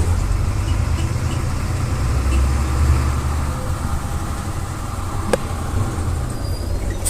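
MWM 6.12 TCE six-cylinder turbo-intercooled diesel engine of a city bus running, a steady deep drone heard from inside the bus that swells a little a couple of seconds in. A single sharp click about five seconds in.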